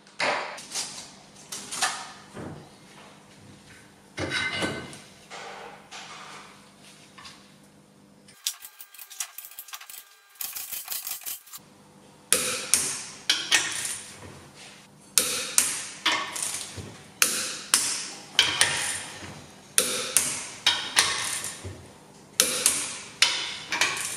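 Hand ratchet clicking and clacking on steel torque-plate bolts on an engine block, with metal tool knocks. The clicks come in quick clusters, densest from about halfway on.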